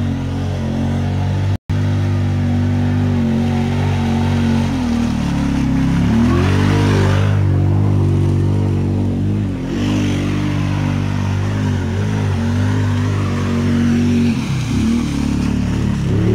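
Side-by-side UTV engine running hard in mud, revving up and easing off over and over, so its pitch keeps rising and falling. The sound cuts out completely for an instant about one and a half seconds in.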